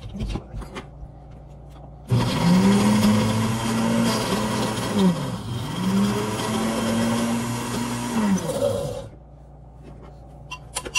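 Countertop blender running for about seven seconds, blending frozen fruit for a smoothie bowl. It starts about two seconds in, its motor pitch dips twice mid-run and picks back up, and it stops shortly before the end.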